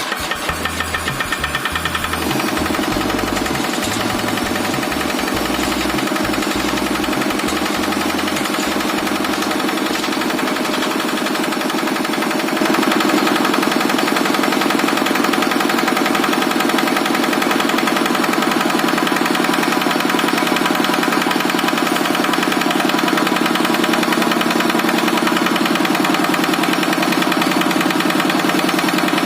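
Kubota RD65DI-1S single-cylinder diesel engine running steadily with a rapid knocking beat. It settles into an even rhythm after the first two seconds and gets louder about 13 seconds in.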